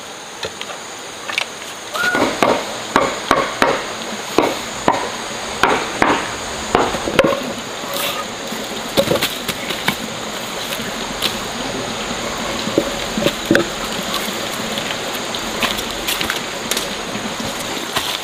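A series of sharp knocks, about two a second for several seconds, then a steady hiss with a few scattered clicks.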